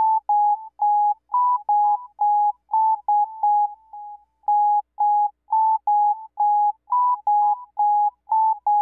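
A string of short electronic beep tones, about three a second, stepping between two or three close pitches, with a short pause about four seconds in.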